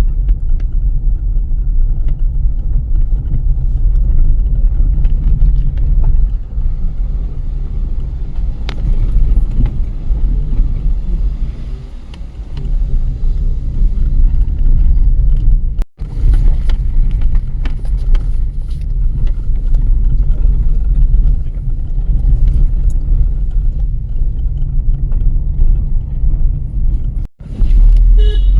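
Car driving on a road: a steady low rumble of road and engine noise, broken twice by a brief cut to silence.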